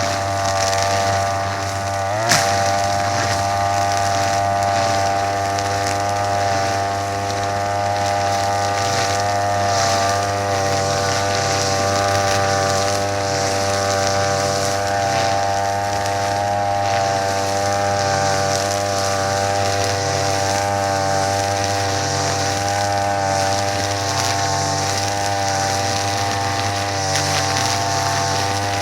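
Small brush cutter (string trimmer) engine running steadily at speed, its pitch wavering slightly, with one sharp click a couple of seconds in.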